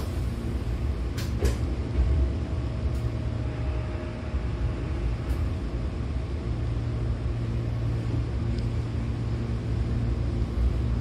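Hankyu Kyoto Line electric train heard from inside the car while running: a steady low rumble, with a couple of sharp clicks about a second in and a faint thin whine that fades out midway.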